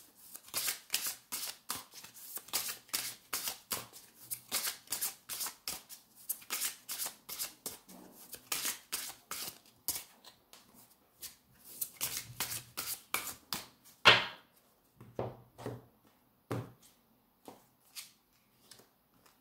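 A deck of tarot cards shuffled by hand, hand over hand: a quick run of soft card slaps about three a second, becoming slower and sparser after about ten seconds, with one louder slap about fourteen seconds in.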